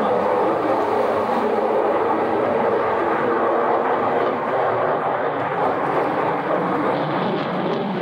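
F-35 Lightning II fighter jet flying overhead, its single F135 turbofan giving a steady jet noise.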